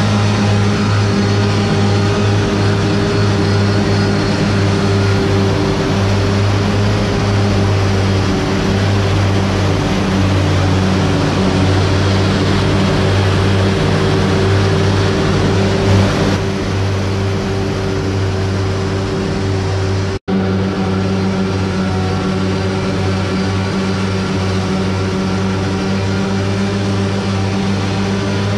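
Self-propelled forage harvester running steadily while direct-cutting sorghum silage: a constant low engine hum over a broad rush of machinery, cut off for an instant about two-thirds of the way through.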